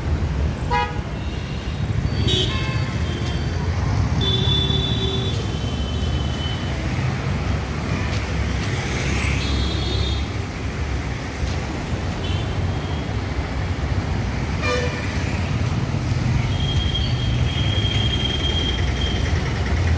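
Busy city street traffic: a steady rumble of passing vehicles with horns honking several times in short blasts, and one long horn blast near the end.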